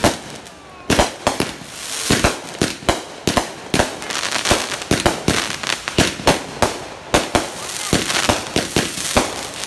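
Backyard aerial fireworks bursting overhead in quick succession: a rapid, irregular string of sharp bangs, about two or three a second, with a hiss between them.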